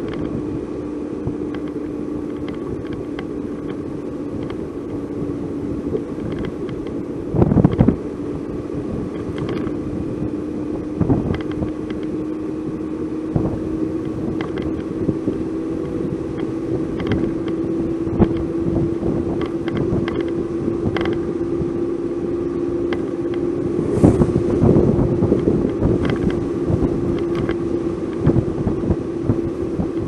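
Car engine and road noise heard from inside the cabin, a steady drone whose pitch climbs slowly as the car drives on. Short knocks from bumps in the road come now and then, with a louder thump about a quarter of the way through and another near the end.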